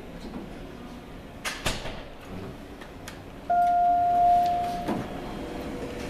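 Two sharp clicks, then a steady electronic tone held for about a second and a half that cuts off with a knock: the Otis Series 1 elevator's arrival chime.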